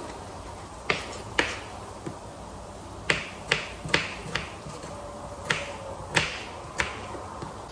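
Kitchen knife chopping tomatoes on a wooden cutting board: about nine sharp knocks of the blade striking the board, coming in uneven little runs.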